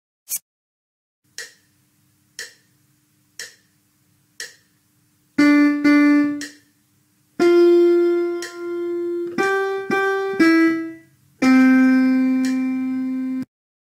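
A piano playing a short single-line melody of about eight notes, preceded by four evenly spaced count-in ticks one second apart. The rhythm mixes short paired notes, even longer notes and a final long held low note, a dictation fragment built from whole, half, quarter and eighth notes.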